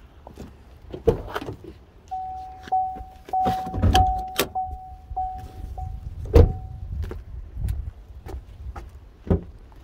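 2018 Chevrolet Cruze door-open warning chime pinging about every half second for around five seconds, amid clunks of the driver's door and the hood release being worked. The driver's door shuts with a thump about six seconds in, the loudest sound here.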